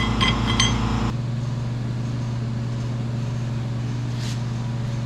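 Light metallic clinks as steel gear and synchro parts are handled and seated on a T5 transmission main shaft, two sharp clinks in the first second. A steady low hum runs underneath, with a couple of faint ticks later.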